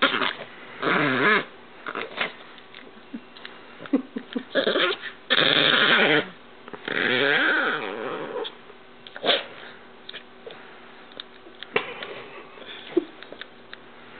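Yorkshire Terrier play-growling and snarling in a series of rough bursts, each up to about a second and a half long. The bursts come thick over the first eight or nine seconds, then give way to fainter snuffles and rustling.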